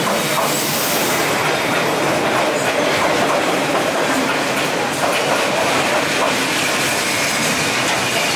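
A train passing close by at speed, its wheels and carriages on the rails making a steady, loud rushing clatter.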